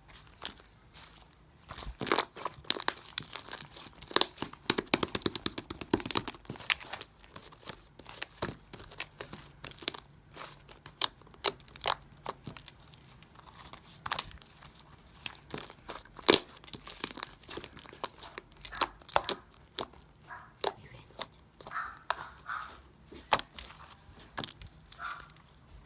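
Hands squeezing and stretching slime, giving an irregular run of sharp pops, clicks and crinkles, thickest for the first few seconds, with a few short squeaks near the end.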